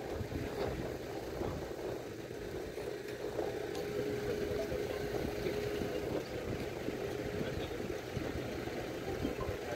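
An engine idling steadily, with a steady whine held for a few seconds in the middle.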